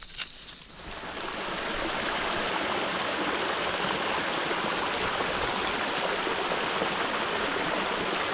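Steady rush of flowing water, fading in about a second in and then holding even.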